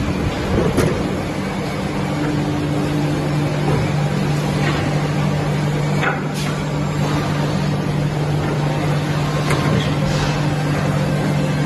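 Steady machine noise and low hum from a multi-spindle CNC wood milling machine, broken by a few sharp clicks.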